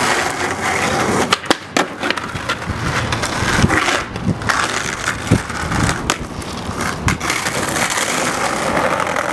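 Skateboard wheels rolling on rough concrete pavement, with several sharp clacks of the board, a few in quick succession about a second in and more later on.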